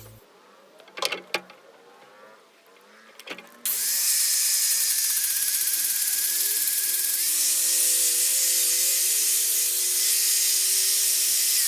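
Two or three sharp clicks, then a small high-speed rotary power tool starts about four seconds in, spinning up and running steadily with a high whine and hiss; it begins winding down at the very end. It is the detail work on a carved sassafras bass, where scales are put into the wood.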